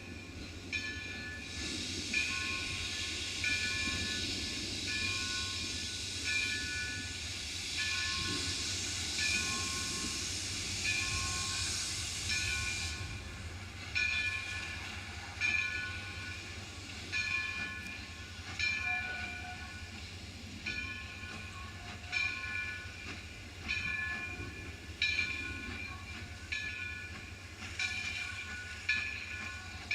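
A 2-8-0 steam locomotive's bell rings about once a second. A loud hiss of steam runs through the first half and cuts off sharply about 13 seconds in, over a steady low rumble.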